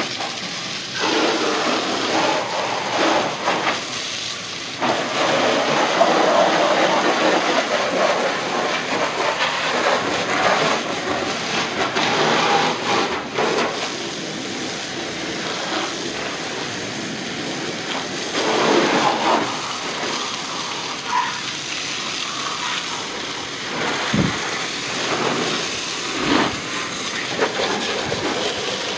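Pressure-washer wand shooting a high-pressure jet of water onto a pickup truck's body, windshield and wheels: a continuous hissing spray that swells and eases as the jet moves across different surfaces, with a couple of dull knocks near the end.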